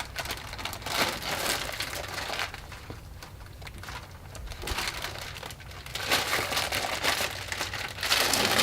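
Plastic film crinkling as it is handled and pulled away from a resin-impregnated glass-fibre repair mat, in irregular bursts with a quieter stretch in the middle.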